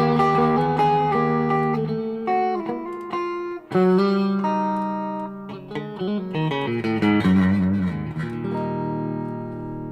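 Electric guitar played through a Cornerstone Gladio SC overdrive pedal: a run of single notes and chords with a short break a little under four seconds in, then a last chord left to ring and fade.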